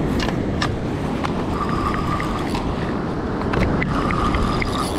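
Spinning fishing reel whirring in two short spells, each about a second long, with scattered clicks and knocks of the rod and reel being handled, as a fish is hooked. Underneath is a steady wash of surf and wind.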